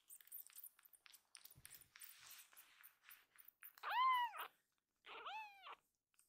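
A very young tabby kitten meowing twice: a loud cry that rises and falls in pitch about four seconds in, then a second, softer one about a second later. Before the first cry there are soft scattered clicks and rustling.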